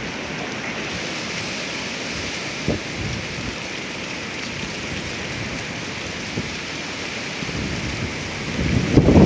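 Strong gusty wind: a steady rushing hiss, with gusts buffeting the microphone in low rumbles about three seconds in and louder near the end.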